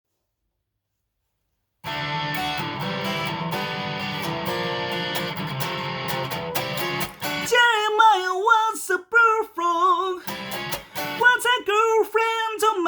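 Silent for about two seconds, then a guitar strums a steady rhythm. Past the halfway point the strumming thins to occasional chords and a voice begins singing over them.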